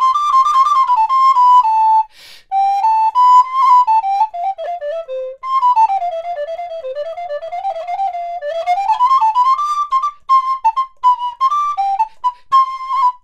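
Resin Ganassi alto recorder in G by Vincent Bernolin playing a fast, ornamented solo melody in quick running scales, with a short breath about two seconds in.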